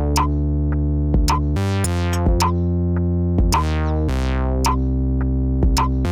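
Background synthesizer music: sustained chords over a steady bass, with a sharp percussive hit about every half second to second.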